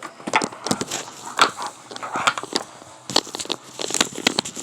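Irregular crackling and rustling close to the microphone, many sharp clicks with no steady rhythm.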